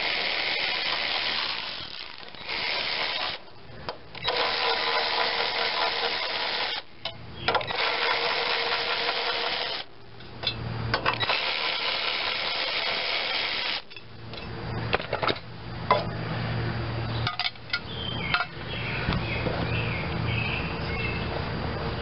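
A power drill with a socket extension runs in about five spurts of one to three seconds each, spinning out the screws that hold the air cleaner holder on a Briggs and Stratton lawn engine. In the later part the drill is quiet, and a few sharp clicks of metal parts can be heard.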